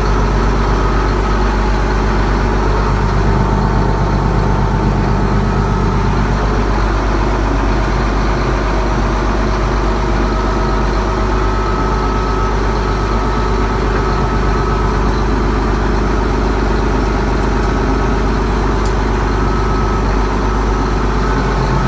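Allis-Chalmers 210 tractor's turbocharged six-cylinder diesel engine running steadily at idle, just started for the first time after sitting through the winter.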